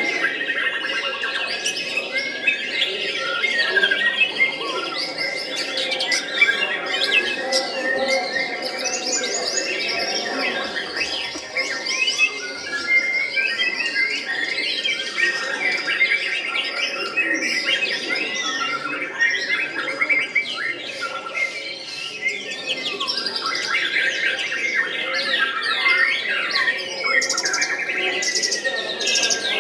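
White-rumped shama singing a continuous, fast-changing stream of whistles, trills and chattering notes.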